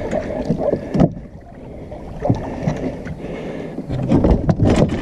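Wind rumbling on the microphone and camera handling noise aboard a small fishing boat, with scattered knocks and rattles of gear against the boat, several close together near the end.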